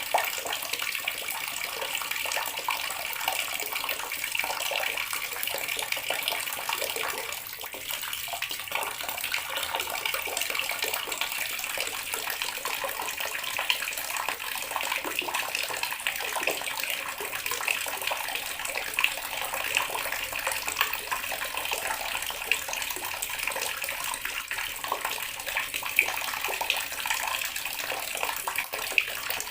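Water running steadily from a tap and splashing, with small irregular spatters.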